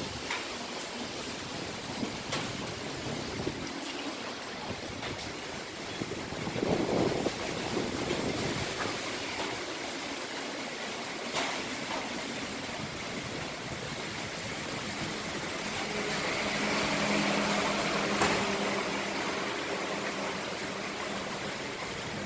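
Typhoon wind blowing in gusts, a steady rushing that swells and eases, with a few sharp knocks. A low steady hum joins in about two-thirds of the way through as the wind rises again.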